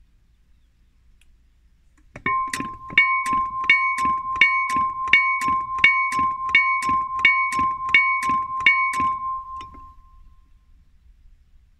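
Electric level-crossing bell, a KLD-4013 slow-striking type: its hammer strikes the metal dome at a steady two to three blows a second, starting about two seconds in. Each strike adds to a sustained bright ring that fades out shortly after the hammer stops.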